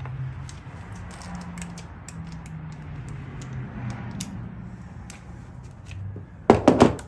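Scattered clicks and clinks of hand tools being handled during spark-plug work, with a cluster of loud metal knocks near the end.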